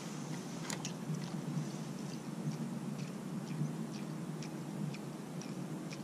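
Light, irregular clicks and ticks, about one or two a second, over a steady low hum: small handling noises from a spinning rod and reel on a plastic kayak as the angler twitches and retrieves a topwater lure.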